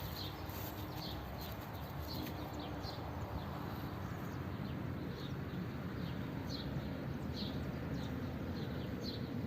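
A bird chirping repeatedly in short, high notes over a steady hiss of rain.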